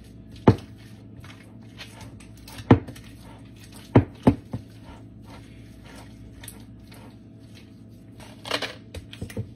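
Spatula stirring a thick mix of cream cheese, sour cream and shredded chicken in a glass mixing bowl, with sharp knocks of the spatula against the glass: single knocks a second or two apart, a quick cluster of them around the middle, and a flurry near the end.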